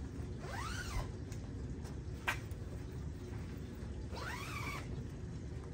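A cat meowing twice, each call rising then falling in pitch, with a sharp click between the two calls.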